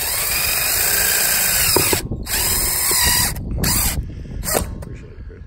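Cordless 20-volt drill driver driving metal-to-wood screws through a metal roof vent's flange. It runs for about two seconds, stops briefly, runs again for about a second, then gives a few short bursts as the screw seats.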